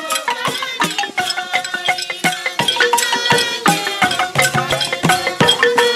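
Wooden xylophone played with mallets in a quick, busy run of struck notes, with hand drums thudding underneath, as traditional church music.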